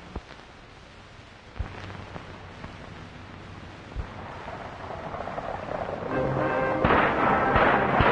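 Old film soundtrack: faint hiss with a few soft knocks, then dramatic music swells in about six seconds in and grows loud, crossed near the end by a run of sharp cracks.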